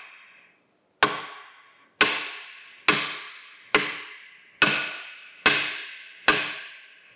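Hammer blows on a cast-iron Monarch 612 lathe tailstock: seven sharp, evenly paced strikes about one a second, each ringing out and dying away. The blows are an attempt to break loose a seized part inside the tailstock that has not budged.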